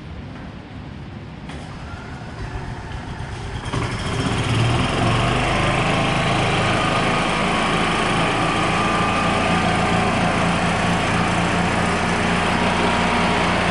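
2006 Club Car golf cart's single-cylinder gas engine starting about four seconds in, then running steadily. It is the first test run with the new governor cable and throttle linkage fitted.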